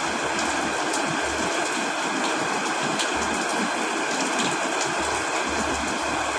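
Heavy rain falling steadily, an even hiss with a few sharper drop ticks.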